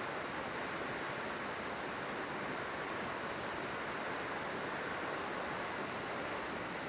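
River water rushing steadily over its bed: an even, unbroken rush.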